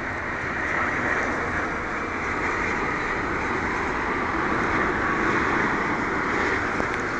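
Boeing 787-8 airliner's twin turbofan engines heard as it comes in to land, a steady rushing jet noise that swells slightly.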